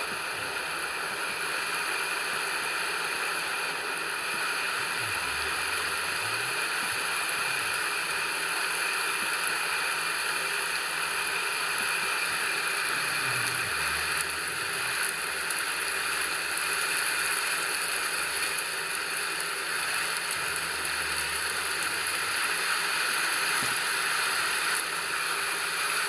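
Steady rain ambience, an even hiss of falling water, with a faint low tone that dips and rises a few times underneath.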